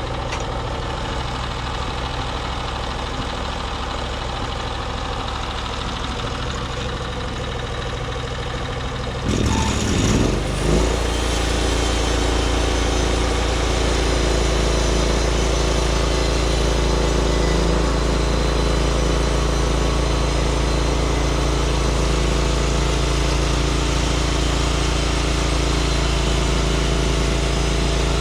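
Small gas engine of a Norwood MX34 portable bandsaw mill idling, then revving up about ten seconds in and running steadily at the higher, louder speed.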